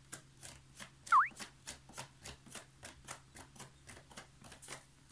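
Cartoon-style sound effect: a quick, even patter of soft high ticks, about five a second, with one short pitch glide about a second in that dips and then rises.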